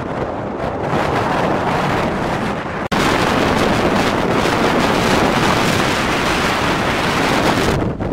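Hurricane-strength wind blowing hard and buffeting the microphone, a loud, steady rush of wind noise. About three seconds in it cuts to an even louder, harsher stretch, which drops back near the end.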